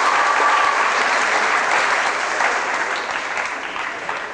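Audience applauding, the clapping fading away over the last two seconds or so.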